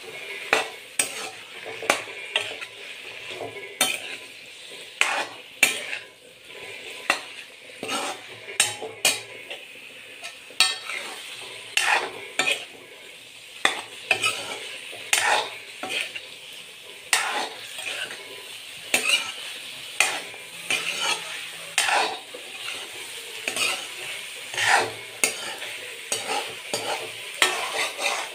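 Metal spatula scraping and clinking against a metal pan again and again as cauliflower and beaten eggs are stirred together, over a steady sizzle of frying.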